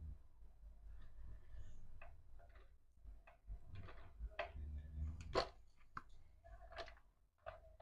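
Faint, irregular clicks and taps of a red-handled hand tool and stiff electrical cable being worked into a consumer unit, the sharpest snap a little past the middle.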